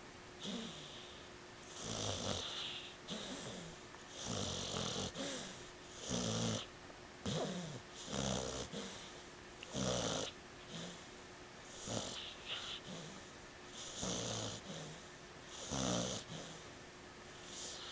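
Pit bull snoring in its sleep: a snore on each breath, about one every two seconds, each with a low fluttering rattle and a breathy hiss.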